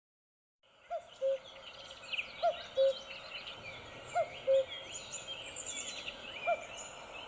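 Birdsong: several small birds chirping and trilling, with a low two-note call, higher then lower, repeated about every second and a half. It starts abruptly about a second in and cuts off at the end.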